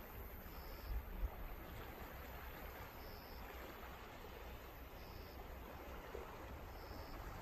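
Gentle sea waves washing on a rocky shore, a steady hiss, with low wind rumble on the microphone. A faint, short, high note recurs about every two seconds.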